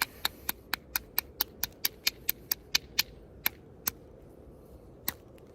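Rapid light taps of a knapping bopper on a hornstone blade edge, about four a second for some three seconds, then slowing to a few single taps. The knapper is tapping at a cracked, damaged section to work it off the blade.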